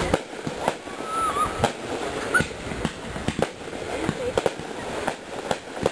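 Fireworks display: aerial shells bursting in a run of sharp bangs at irregular intervals, about a dozen in a few seconds.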